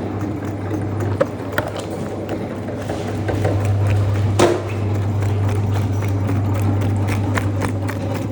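A machine running with a steady low hum, with scattered clicks and knocks and one louder knock about halfway through.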